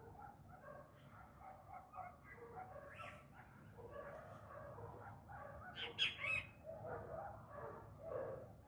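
An animal calling in a run of short, faint, pitched cries, with one louder, sharper cry about six seconds in.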